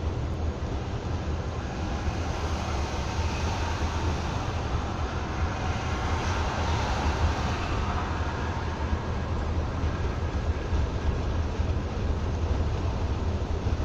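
Steady low rumble and road noise inside a vehicle cruising at highway speed: engine and tyres on asphalt.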